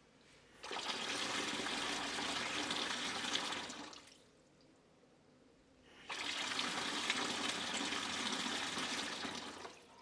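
Water gushing from a chrome cross-handle wall tap into a plastic bucket, turned on twice for about three seconds each; each flow starts suddenly and tails off as the tap is closed.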